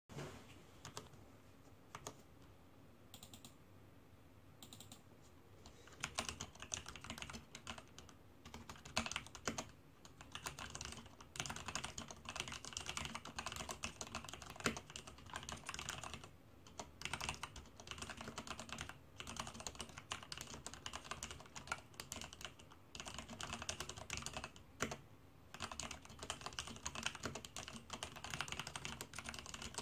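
Leopold FC660M mechanical keyboard with heavy linear Cherry MX Black switches being typed on. A few separate keystrokes at first, then fast continuous typing from about six seconds in, broken by a few short pauses.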